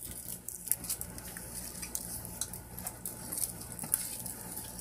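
Candy packaging being handled: faint, irregular clicks and crinkles scattered throughout.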